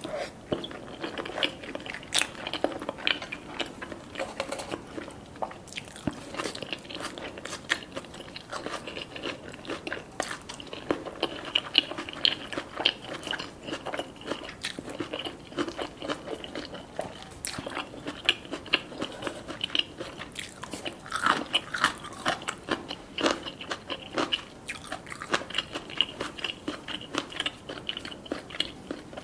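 Close-miked biting and chewing of crunchy black rice cones with scallop, avocado and salmon filling: many irregular crisp crunches and wet chewing clicks.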